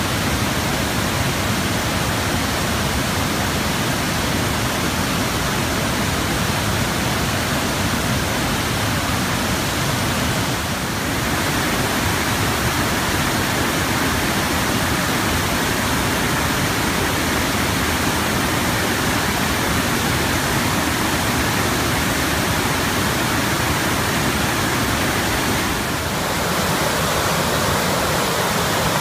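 Waterfall: falling water making a loud, steady rush, with two brief slight dips in level, about eleven seconds in and near the end.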